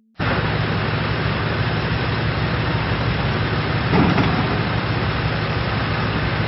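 Komatsu PC350 hydraulic excavator's diesel engine running steadily, with a brief louder surge about four seconds in.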